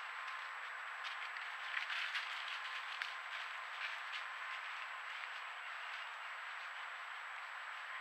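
Steady hiss from a trail camera's microphone with a faint high whine. Scattered crackles of dry leaves as a white-tailed deer steps through the leaf litter come mostly in the first half.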